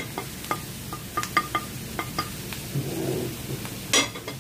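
Onions frying in oil in a pan, with a wooden spoon tapping and scraping spice powder off a ceramic plate in a string of sharp clicks, and a louder clatter about four seconds in as the plate is set down on the stove.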